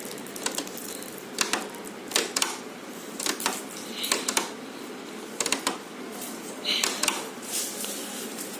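Irregular sharp plastic clicks and taps from the Whirlpool deep freezer's switch and panel being handled and worked, over a steady hum. The switch is a dummy with nothing connected, and working it changes nothing.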